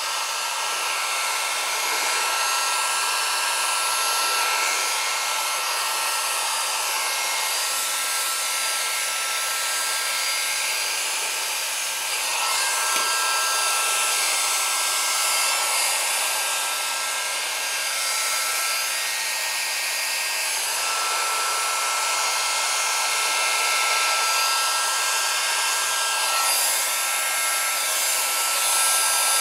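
Hot-air heat gun blowing steadily with a steady whine, heating a tight electric scooter tire so it can be worked onto the rim. The whine drops out briefly twice, about twelve and twenty seconds in.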